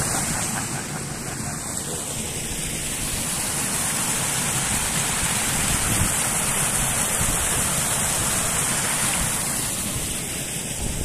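Steady rush of running water from an overflowing lake, a loud even hiss with an uneven low rumble underneath.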